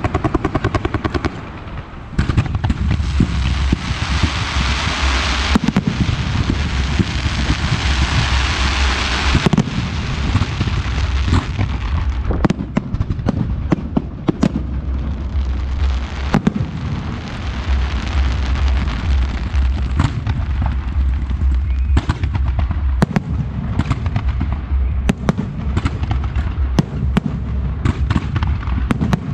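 Fireworks display: dense crackling and hissing from about two seconds in until about ten seconds, then aerial shells bursting in rapid, repeated bangs, all over a steady low rumble.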